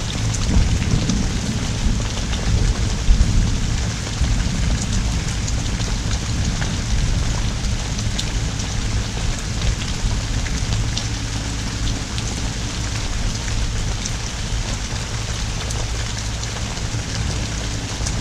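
Heavy rain pouring steadily, with many small drop ticks on a nearby surface and a low rumble underneath.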